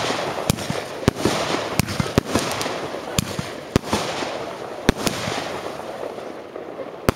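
Fireworks display: aerial shells going off in an irregular series of about ten sharp bangs, over a continuous hiss. The loudest bang comes near the end.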